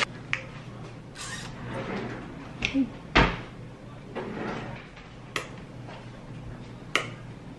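Scattered sharp clicks and knocks from small plastic bottles and caps being handled on a tabletop, including a small bottle cap being worked at with the fingers. The loudest is a single knock a little after three seconds in.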